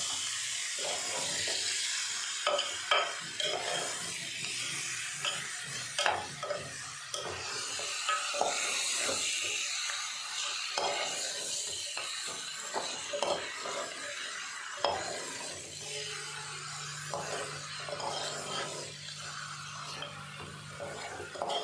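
Metal ladle stirring and scraping chicken pieces in an aluminium pot, with frequent clinks against the pot and a steady sizzle from the meat frying in masala. A low steady hum joins about fifteen seconds in.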